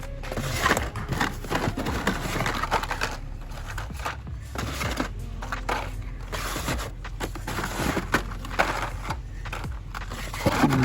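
Carded Hot Wheels cars being handled and flipped through in a cardboard shipper case: irregular crinkling of plastic blister packs, scraping of card against cardboard, and small clicks.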